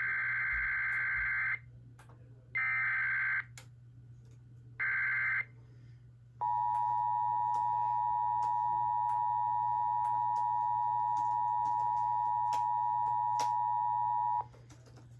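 Emergency Alert System broadcast for an AMBER child abduction alert: the screechy digital SAME header data bursts (one already sounding, then two shorter ones about two seconds apart), followed about six seconds in by the steady two-tone EAS attention signal (853 and 960 Hz), held for about eight seconds before cutting off.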